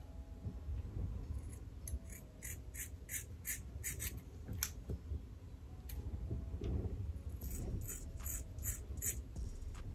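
Scissors snipping through thick curly hair, cutting off heat-damaged ends: a run of quick sharp snips about three a second, a pause in the middle, then another run near the end.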